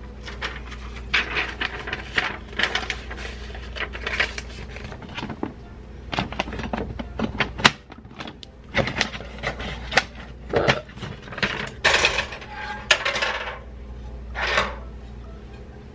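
A frying pan and spatula being handled on a coil stove, with irregular clinks, knocks and short scrapes. A steady low hum runs underneath.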